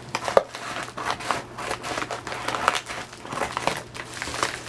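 Packaging crinkling and rustling as a package is torn open by hand, in irregular crackles with a sharper click about half a second in.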